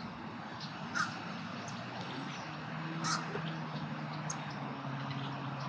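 Two short bird calls about two seconds apart, over outdoor background noise, with a low steady hum coming in about two seconds in.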